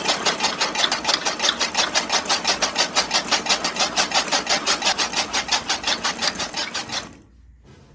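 Small DC electric motor driving a miniature chaff cutter through rubber-band belts, running with a rapid, even, rhythmic clatter that fades and stops about seven seconds in.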